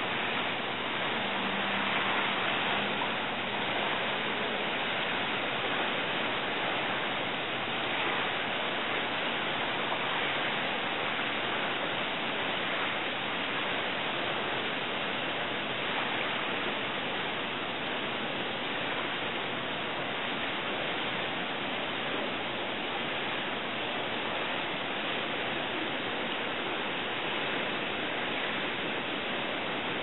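Steady, even hiss with nothing standing out from it.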